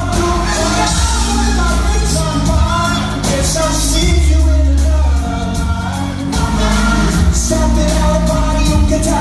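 Live pop-rock band playing: a lead singer over electric guitar, bass guitar and drums, loud and steady, recorded from the audience in a large hall.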